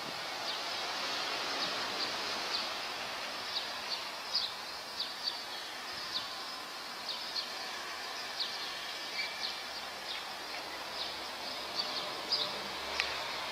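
Steady outdoor city street noise with many short, high chirps scattered throughout.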